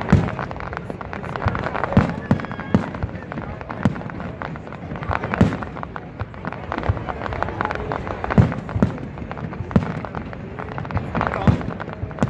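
Fireworks display: an irregular string of aerial shells bursting with sharp booms and crackles, several loud bangs a second or two apart over a constant rumble and crackle of smaller bursts.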